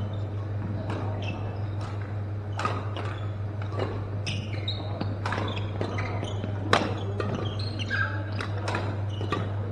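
Badminton rackets striking shuttlecocks in a hall: irregular sharp smacks from several rallies, ringing a little in the room, over a steady low hum.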